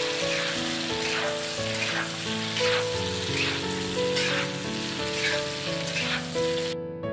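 Chunks of chicken sizzling in hot oil in a wok as they are stir-fried, with a stir of the spatula about once a second. The sizzling cuts off near the end.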